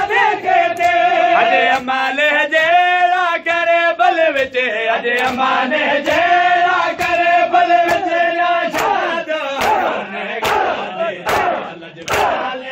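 A man's voice sings long, wavering held notes of a nauha (Muharram lament) over the mourners' rhythmic chest-beating in unison. In the last few seconds the chest slaps come to the fore, about one a second, over the crowd's voices.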